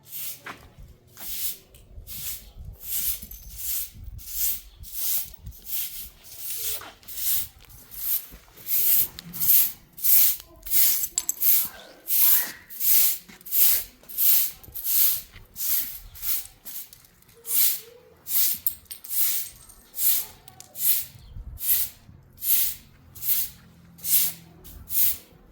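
A broom sweeping a yard in steady, regular swishing strokes, about one and a half a second, getting louder about a third of the way in.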